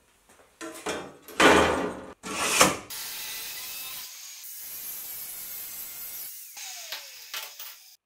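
Two loud clattering crashes of sheet steel on a steel bench, then an angle grinder with a flap disc grinding the edge of a clamped steel sheet, a steady hiss for about three seconds, with a brief falling tone near the end.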